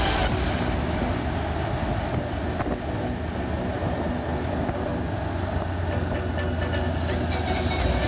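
Honda motorcycle running at steady road speed, heard from a camera on the bike: a low engine hum under steady wind noise on the microphone.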